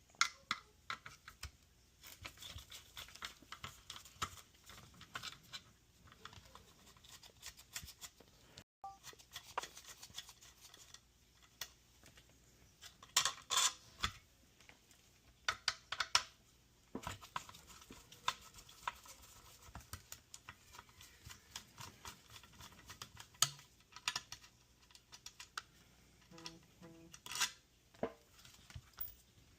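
Small hand tools and parts being handled on a workbench: scattered clicks, light taps and short scrapes of metal, with a few quick clusters of sharper ticks.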